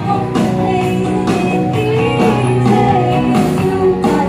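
Music: a song with a singing voice over guitar.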